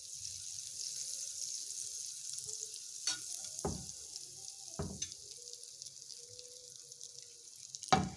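Butter sizzling as it melts and foams in a preheated nonstick frying pan, with a few short knocks along the way.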